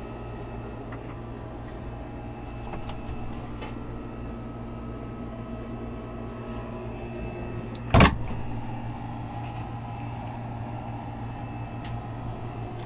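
A steady low hum with a few faint clicks of handling, and one sharp knock about eight seconds in.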